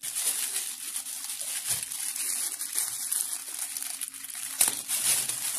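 Clear plastic wrapping crinkling and rustling as hands grip and pull at it, with louder crackles about four and a half seconds in.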